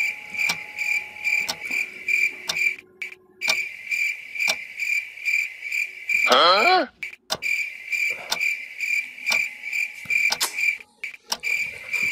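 Crickets chirping in a steady, rapidly pulsing high trill. About six seconds in comes a short, louder wavering voice-like cry that bends up and down.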